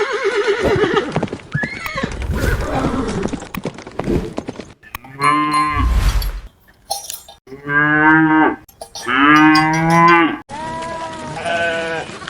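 Farm animals calling: a run of drawn-out pitched calls, several lasting about a second to a second and a half, from different clips cut together.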